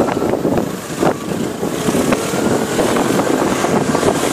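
Wind buffeting a motorbike rider's phone microphone on the move, with the rider's vehicle engine running underneath.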